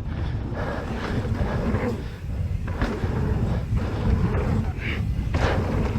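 Mountain bike descending a dirt trail: steady wind rush on the helmet camera's microphone over the rumble and rattle of the tyres and bike on the ground.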